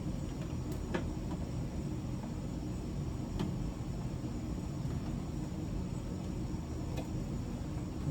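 Steady low background rumble with a few faint sharp clicks, about a second, three and a half seconds and seven seconds in, from small parts being handled.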